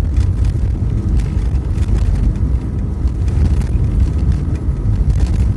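A vehicle's engine and tyres heard from inside the cabin while driving on a snowy road, a steady low rumble with light scattered clicks.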